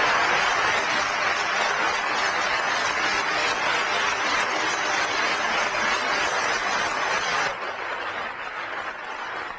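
Audience applauding steadily as a round of applause, dropping off suddenly about seven and a half seconds in and fading away.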